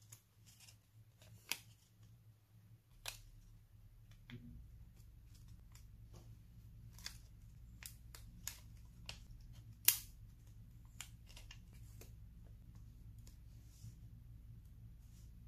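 Tweezers clicking and tapping as small stickers are picked off a plastic sticker sheet and pressed onto a journal page: a string of sharp, irregular clicks, the loudest about ten seconds in. A faint low hum runs underneath from about three seconds in.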